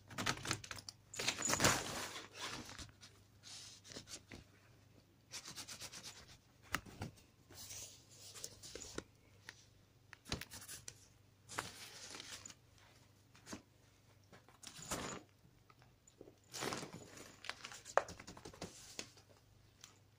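A cat scrabbling and clawing at a crinkly fabric pop-up play tunnel, rustling and scratching the material in irregular bursts, with runs of quick claw scratches.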